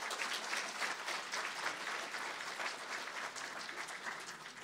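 Audience applauding, a steady crackle of many hands clapping that begins to die down near the end.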